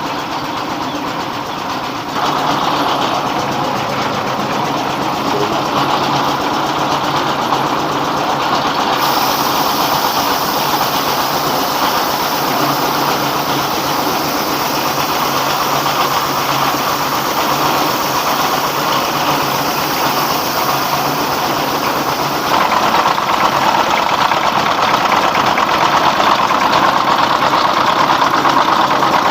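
Rice milling machine running, driven by a 24 hp single-cylinder 'dompeng' diesel engine: a loud, steady machine drone that steps up in level about two seconds in and again about three-quarters of the way through.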